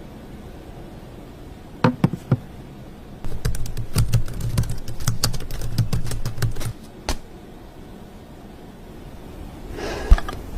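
A run of rapid, irregular clicks and taps, like typing on a keyboard, over a low hum, with a single thump near the end.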